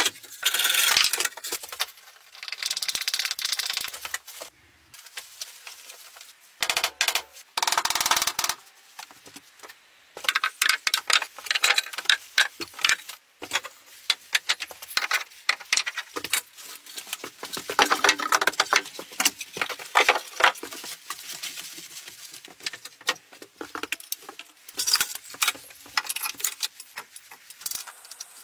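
Irregular runs of clicks, knocks and light clattering from things being handled and set down on wooden shelves and a wooden tabletop, with a few short stretches of rustling noise.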